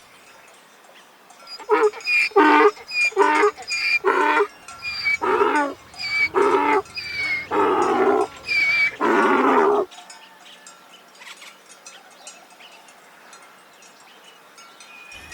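Donkey braying: a long run of alternating hee-haw notes, starting about two seconds in and ending near ten seconds, the last notes longer and drawn out.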